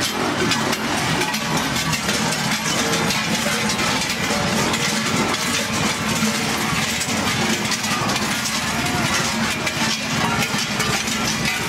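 Krampus costume cowbells clanging in a dense, continuous clatter as a procession of Krampus figures passes, over a steady running engine and crowd noise.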